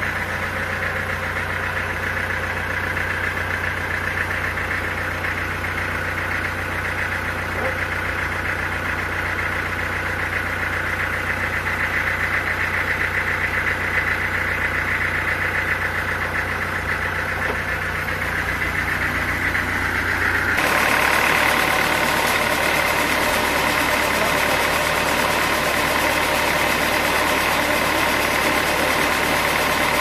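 Sawmill machinery running steadily with a deep hum and a constant higher whine. About two-thirds of the way through, the sound shifts suddenly: the deep hum drops out, and a brighter, slightly louder higher sound takes over.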